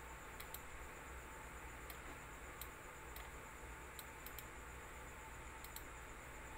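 Computer mouse clicking about a dozen times at irregular intervals, several as quick double clicks, over a steady faint hum and hiss.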